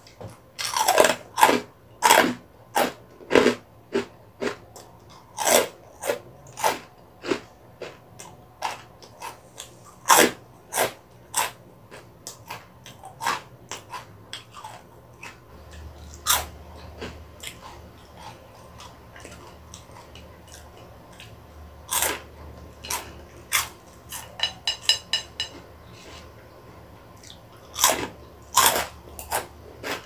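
Close-up crunching of crispy puffed snacks, honey twists and Cheetos, being bitten and chewed: irregular runs of sharp, loud crunches, busiest in the first several seconds and again near the end, with softer chewing in a quieter stretch between.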